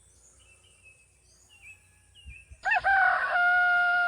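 A rooster crowing once, starting loudly more than halfway through with a few short rising notes and ending in a long held note. Faint high chirping of small birds or insects runs underneath.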